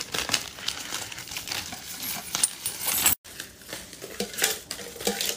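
Coins clinking against a metal money tin while paper banknotes rustle, as money is pulled out and the tin is tipped out, with a brief dropout about three seconds in.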